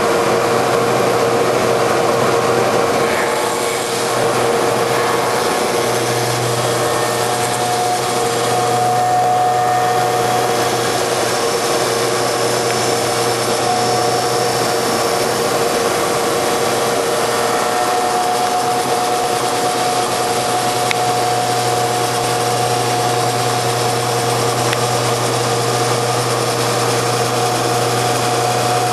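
Hydraulic automatic copy wood lathe running steadily: a constant machine hum with a couple of steady whining tones over a dense rushing noise. The low hum grows louder about six seconds in.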